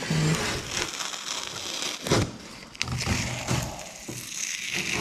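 Crackling and rustling of masking tape being pulled and worked by hand, with a couple of sharp knocks about two and three seconds in.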